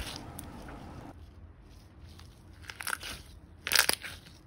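Thick white glossy slime being pressed and stretched by hand, crackling softly, with one sharp bubble pop near the end.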